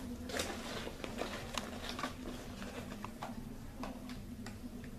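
Hands rummaging in a canvas tote bag and handling a hairbrush in its plastic packaging: irregular rustling and crinkling with scattered light taps, over a steady low hum.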